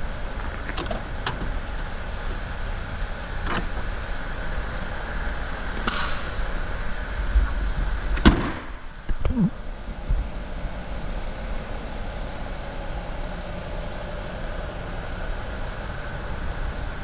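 A vehicle engine running steadily at idle. A few sharp clicks sound over it, and a loud knock comes about eight seconds in.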